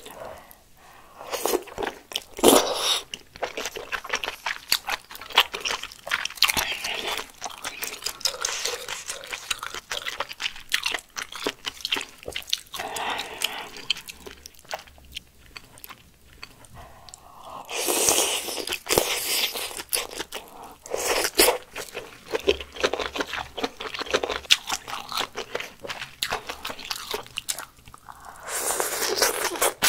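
Close-miked eating of malatang: wet chewing of wide glass noodles dipped in peanut sauce and fresh cilantro, with many small wet mouth clicks and crunches. Louder slurps come a few seconds in, about two-thirds of the way through, and near the end.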